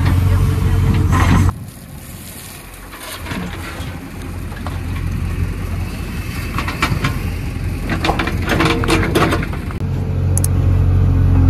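JCB 3DX backhoe loader's diesel engine running under load while the backhoe digs. The engine is loud at first, drops away suddenly about a second and a half in, then builds again and is loud near the end. In between, clusters of short knocks and scrapes come from the bucket working through soil and stones.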